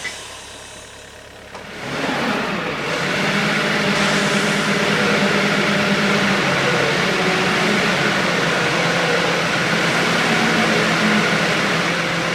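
Tyre handler machine's engine running steadily, growing louder about two seconds in and holding an even hum.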